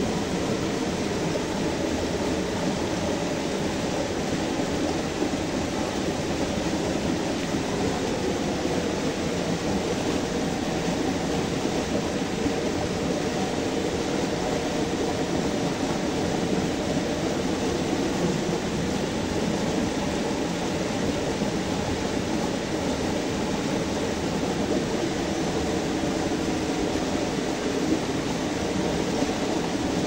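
Small forest waterfall pouring over rocks into a pool: a steady, unbroken rushing splash of water.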